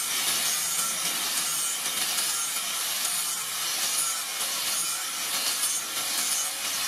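Angle grinder with an abrasive sanding disc grinding along the edge of a steel knife blade: a steady, high-pitched hissing grind that does not let up.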